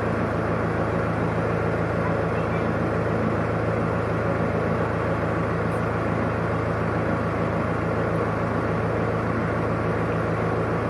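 A steady low engine drone, several low tones held level with an even rumble over them, not rising or falling.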